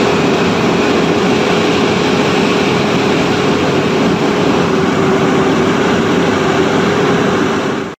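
Firefighting airplane's engine running steadily, heard from on board, a dense drone with one steady hum running through it; it cuts off abruptly near the end.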